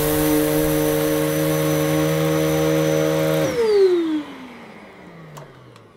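Electrolux Intensity upright vacuum cleaner running loud and steady with its motor and brushroll on carpet, then switched off about three and a half seconds in, its whine falling steadily in pitch as the motor winds down.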